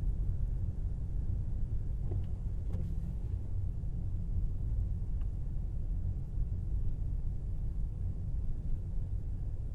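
Steady low rumble of a Tesla Model Y driving: road and tyre noise from the electric car, with no engine note, and a few faint ticks.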